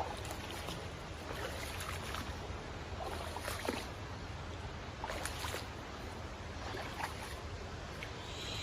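Steady rush of creek water, with irregular short splashing and crunching steps as someone wades along the shallow, rocky creek bed.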